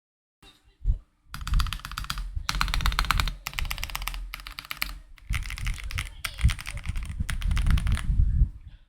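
Typing on a mechanical keyboard with KTT Matcha tactile switches: a single keystroke about a second in, then a fast, continuous run of key clacks with short breaks, stopping just before the end.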